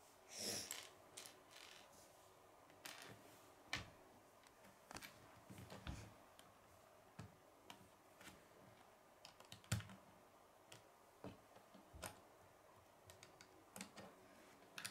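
Faint, irregular clicks and taps of small plastic Lego bricks being pressed onto a model and handled on a wooden tabletop, a sharper click now and then.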